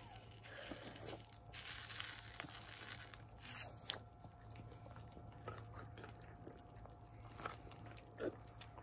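Faint rustling with scattered small crackles and clicks as sour liquid candy is squeezed into a bowl of mixed sour candy.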